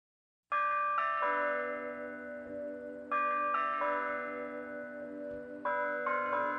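Bell-like theme music starting about half a second in: chiming notes struck in short phrases of three, each phrase ringing on before the next one starts about every two and a half seconds.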